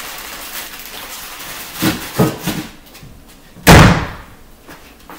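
Three light knocks about two seconds in, then a door slamming shut hard a little past halfway.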